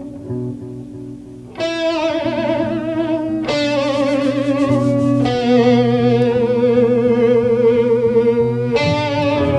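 Improvised rock music: an electric guitar holds long sustained notes with a wavering vibrato, moving to a new note every couple of seconds. It gets louder about a second and a half in.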